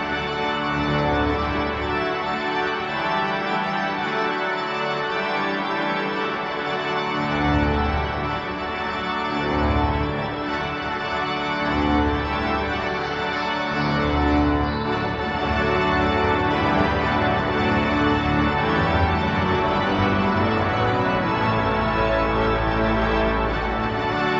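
Maarschalkerweerd/Adema pipe organ played with full organ (tutti): loud sustained chords changing every second or two over deep pedal notes, in a large church.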